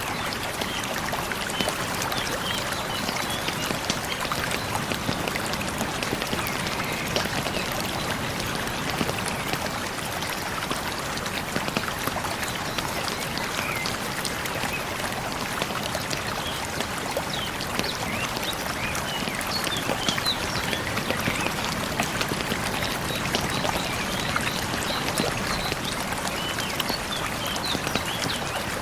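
A small stream flowing and trickling steadily, mixed with the frequent small crackles of a campfire.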